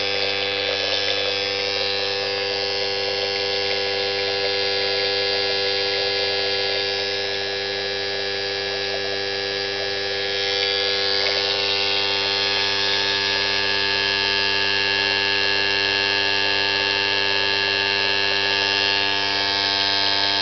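Fuel injectors firing rapidly under Megasquirt-2's injector test mode: a steady, loud electric buzz that holds one pitch throughout.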